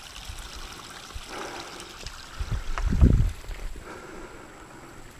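Spring water trickling and pouring out of the mountainside. About three seconds in, a brief low rumble rises over it.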